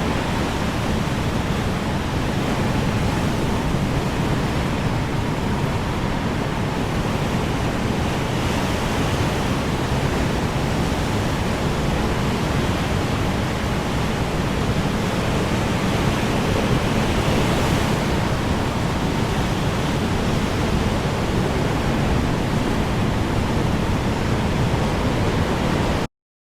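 Strong wind blowing steadily as a dense, even rush with a low rumble, cutting off suddenly near the end.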